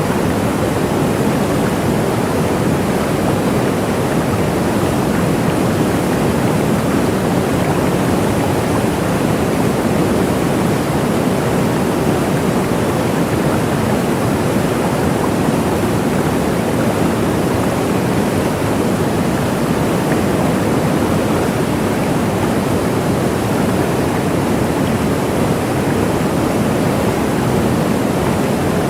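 Waterfall: water falling and splashing, a steady rushing noise that does not change.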